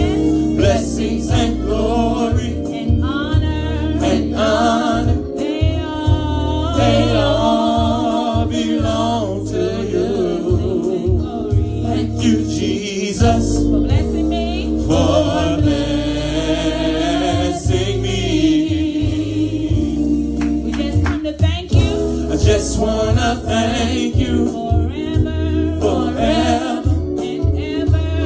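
Gospel praise-and-worship song: a woman leads the singing on microphone, with other voices joining, over instrumental accompaniment with a heavy, pulsing bass.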